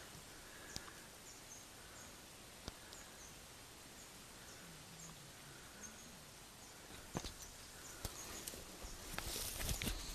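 Faint outdoor background hiss with small high chirps repeating about twice a second, a few sharp clicks, and a louder rustling burst near the end.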